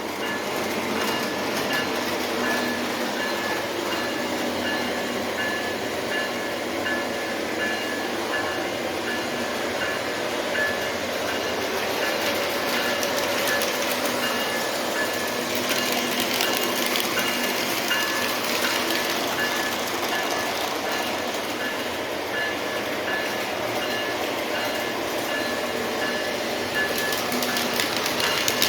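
O gauge model train running along its track: a steady whirring rumble of motor and wheels on the rails with a faint high whine.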